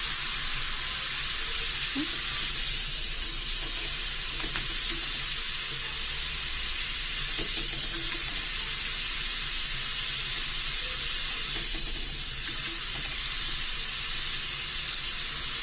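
Soaked moong dal (split mung beans) deep-frying in hot oil inside a stainless steel mesh strainer in a kadai: a steady sizzle as moisture bubbles out of the lentils, with faint crackles.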